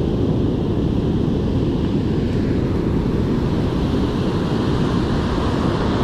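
Heavy surf breaking and washing up the beach, with wind buffeting the microphone: a steady low rumble without breaks.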